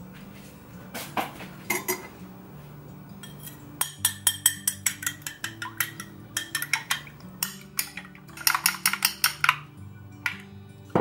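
Metal spoon beating raw eggs in a ceramic bowl: quick runs of clinks as the spoon strikes the bowl, from about four seconds in to about nine and a half, after a couple of separate knocks near the start.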